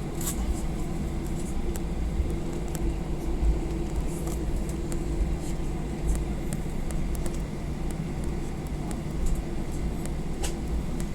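Airliner taxiing, heard from inside the cabin: a steady low rumble with a steady hum. Light clicks and rattles come and go throughout, the two plainest just after the start and near the end.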